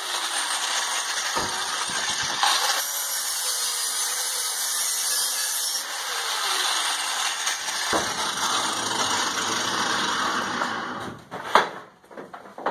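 Angle grinder running and grinding the sheet-metal cylinder of a forge body, cleaning up the metal: a steady harsh hiss with a high whine. It stops about eleven seconds in, followed by a couple of sharp knocks.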